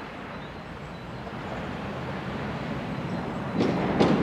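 Tatra T3 tram approaching on its track, its rumble growing louder, with two loud knocks from the wheels near the end.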